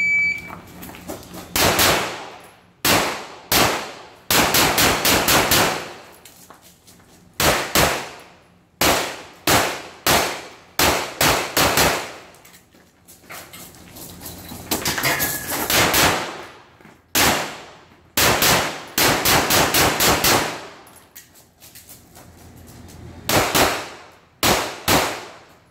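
Shot-timer start beep, then a handgun fired in fast strings of shots, mostly in quick pairs, broken by pauses of one to two seconds as the shooter moves between positions on a practical shooting stage.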